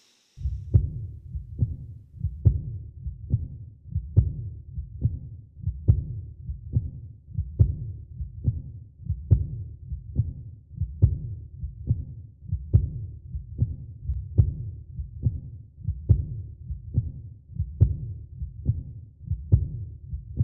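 Heartbeat sound effect: a slow, even low thumping, a little over one beat a second, over a low hum. It comes in just after a brief hiss.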